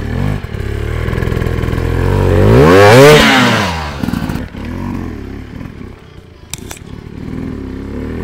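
Hard enduro motorcycle engine running, its pitch climbing and falling back in a loud rev about three seconds in, then a couple of sharp clicks later on.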